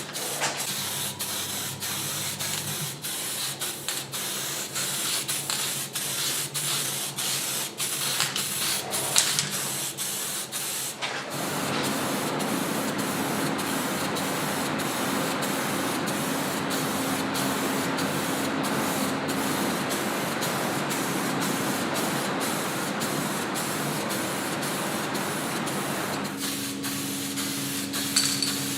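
Compressed-air spraying: hissing in many short bursts for about the first eleven seconds, then one continuous spray with a faint steady hum beneath it, stopping about two seconds before the end.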